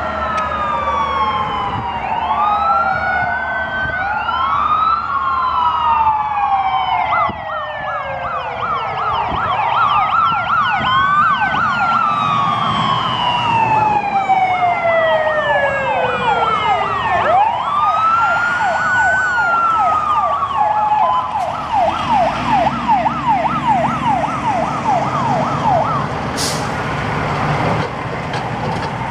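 Sirens of several fire engines sounding together as a convoy goes by: slow wails rising and falling, overlapped from about seven seconds in by a fast yelp of about three cycles a second that stops near the end. In the last seconds the engine of a fire truck pulling by close takes over, with a short sharp hiss.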